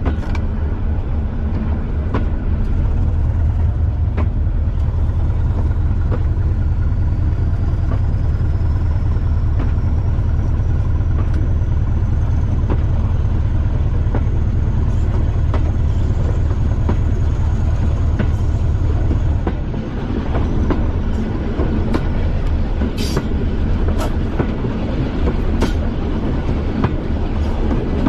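Class 205 'Thumper' diesel-electric unit's English Electric four-cylinder diesel running steadily under power, a deep low beat with a faint high whine that rises over the first several seconds and holds. About two-thirds through the engine note drops back as power is eased, leaving the wheels clicking over the rail joints.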